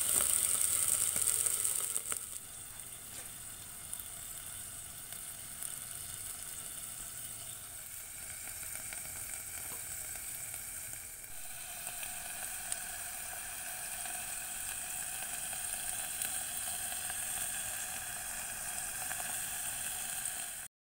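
Garlic shrimp sizzling and steaming in a covered pan with a little oil and water: a steady hiss, louder for the first two seconds, then settling to a lower level.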